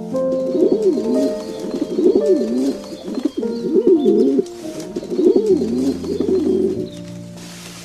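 Pigeons cooing in repeated low, wavering phrases, about four or five of them, over background music.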